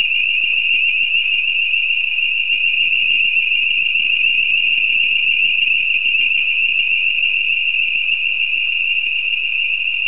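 Building fire alarm sounding continuously: a loud, high-pitched electronic tone with a fast warble. The residents take it to have been set off by cooking fumes reaching a detector from a student's room.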